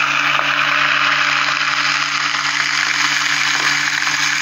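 Electric immersion blender running steadily at full speed, its motor whirring with a steady low hum as the blade purées thick cooked haleem of lentils, wheat and chicken in an aluminium pot.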